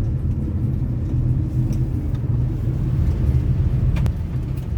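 Steady low rumble of a car's engine and tyres on the road, heard from inside the moving car, with a couple of light clicks about four seconds in.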